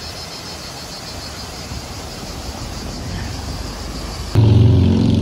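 Water of the Fontana dell'Acqua Paola falling steadily into its basin, a constant splashing rush with a faint high pulsing buzz over it. About four seconds in it is cut off by a loud, steady low hum.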